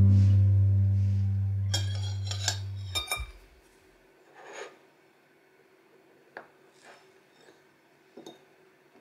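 Acoustic guitar music ends on a chord that fades out over the first three seconds, with a few sharp china clinks near its end. After that come soft, scattered ticks of a fork cutting into chocolate cake and touching a porcelain plate.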